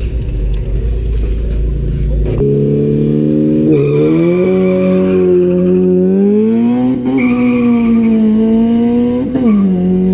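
A Honda Civic's four-cylinder engine at full throttle, accelerating down a drag strip. After a couple of seconds of low rumble, the engine note climbs and drops back at each gear change, about three times, before settling.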